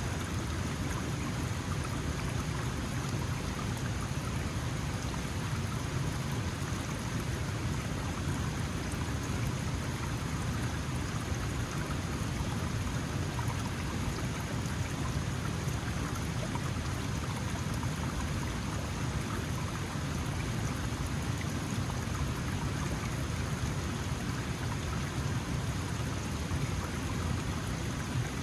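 Small mountain stream flowing steadily over rocks, a continuous even rush of water with a full low end.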